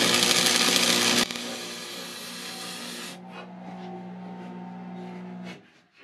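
Electric arc welder crackling and hissing on steel, stopping abruptly about a second in. A quieter noise trails off, then a steady low hum holds until shortly before the end, followed by a few light knocks.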